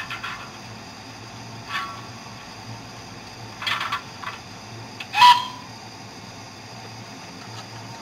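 O gauge model steam locomotive layout with a low steady hum and a few short, sharp clicks and hisses; the loudest, about five seconds in, carries a brief high whistle-like tone.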